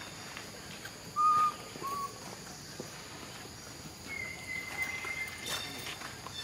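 Thin, clear whistled animal calls: two short ones about a second in, the first the loudest, then a longer, higher call held steady for over a second around the four-second mark, with a few faint clicks.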